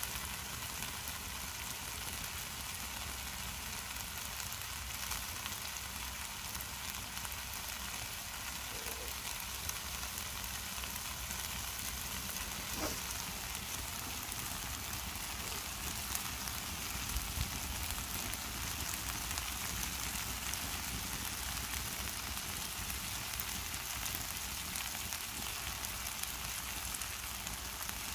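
Food sizzling in a frying pan over a campfire: a steady frying hiss with small scattered crackles.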